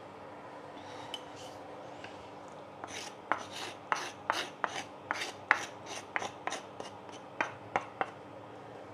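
A quick run of sharp knocks and scrapes from kitchen utensils, about three or four a second, starting about three seconds in and stopping near the end.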